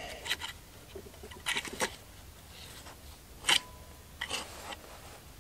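Light clicks and small rattles of plastic and metal parts as a Husqvarna 281 chainsaw's chain brake handle and spring are worked by hand. The sharpest click comes about three and a half seconds in, with a brief ring after it.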